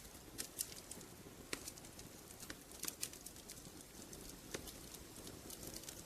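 Wood fire crackling in a fireplace: a soft steady hiss with irregular sharp snaps and pops, a few louder ones scattered through.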